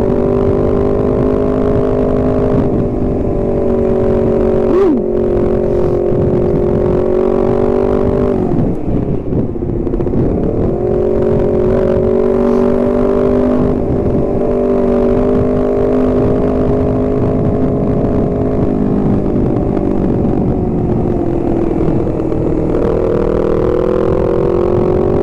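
Honda CBR250RR's parallel-twin engine running steadily under way, with road and wind noise. About nine seconds in the revs drop briefly and come back up, and near the end they sag and then climb again.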